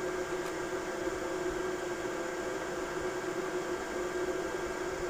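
Steady hum with a fan-like hiss from the running bench equipment, with a faint click about half a second in.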